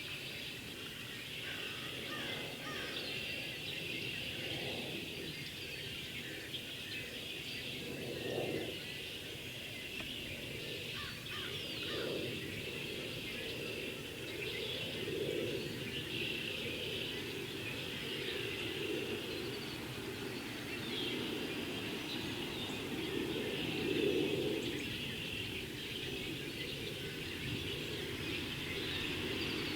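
A large mixed flock of red-winged blackbirds and cedar waxwings calling all at once: a continuous, dense chorus of overlapping chirps and high call notes. A low rumble underneath swells a few times.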